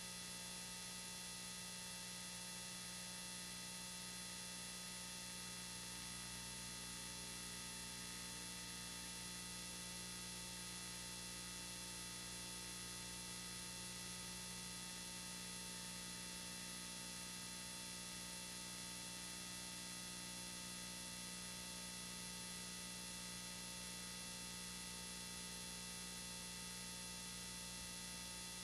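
Steady electrical hum with hiss and several constant whining tones, unchanging and with no other sound, the kind of noise left on a recording whose soundtrack has failed.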